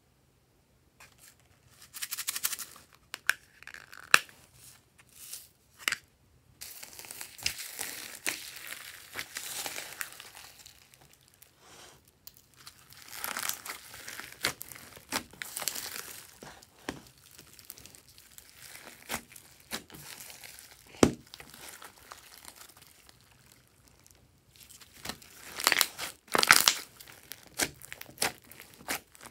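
Hands squishing and kneading glossy slime mixed with foam beads and sequins: wet crackling and squelching in irregular bursts with sharp little clicks, starting about two seconds in.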